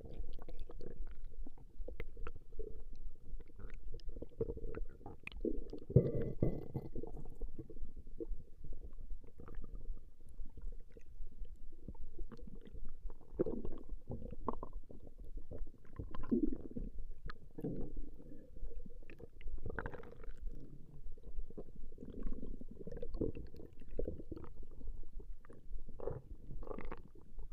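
A woman's stomach growling: a steady low rumble broken by irregular gurgles, the loudest about six seconds in.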